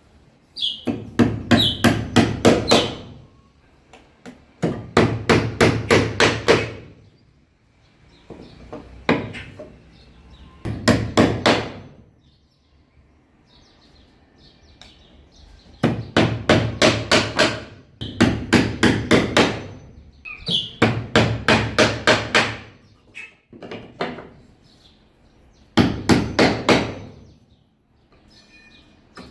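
Hammer driving a nail: runs of rapid blows, about four or five a second, each run lasting one to two seconds, with short pauses between runs.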